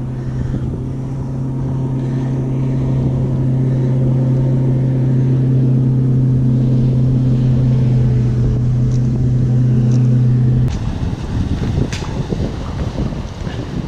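A motor's steady hum holding one low pitch, growing slowly louder and then cutting off abruptly near the end, leaving wind and water noise with a few clicks.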